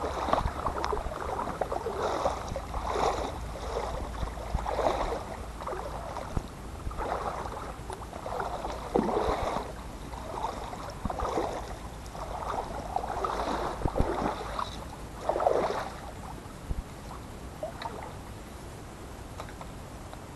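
Water sloshing and splashing in irregular bursts, about one a second, over a low steady rumble.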